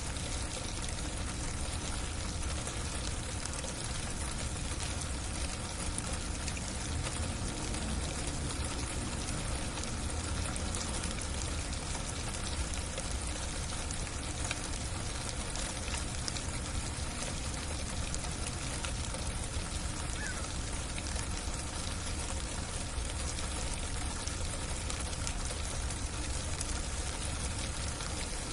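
Heavy freezing rain falling in a steady, even hiss, with a low rumble underneath.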